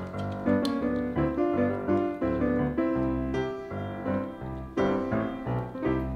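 Background piano music: a run of short notes over low bass notes.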